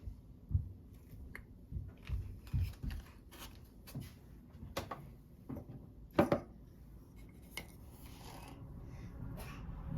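Scattered clicks, taps and scrapes of kitchen utensils and dishes being handled, the loudest a sharp knock about six seconds in.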